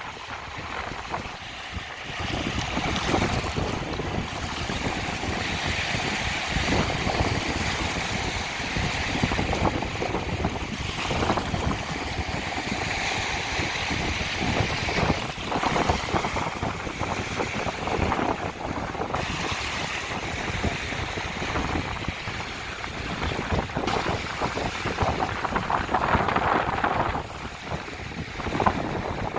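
Small Baltic Sea waves washing onto the beach in a steady, swelling and ebbing wash, with wind rumbling on the microphone.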